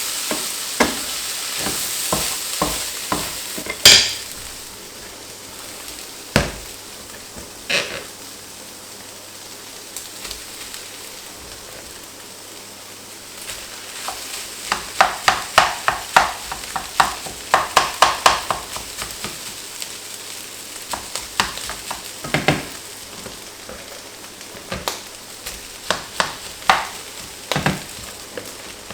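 Fried rice sizzling in a hot pan while it is stirred, the utensil clacking and scraping against the pan, with a sharp knock about four seconds in and a flurry of quick stirring strokes about halfway through.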